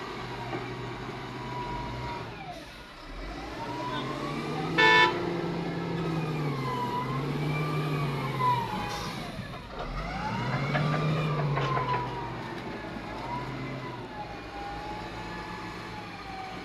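Heavy diesel excavator engine working under hydraulic load: its pitch rises and falls over and over every second or two as the machine digs and swings. A brief loud beep sounds about five seconds in.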